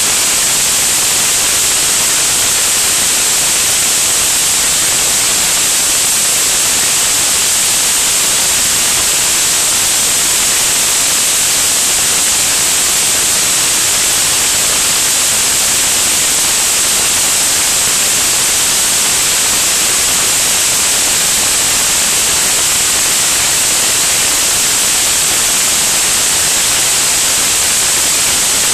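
Steady, loud static-like hiss, strongest in the treble, with no engine note, voice or other event.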